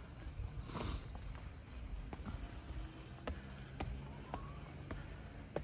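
Insects chirping steadily in a high band, with footsteps on the steps as light taps about every half second.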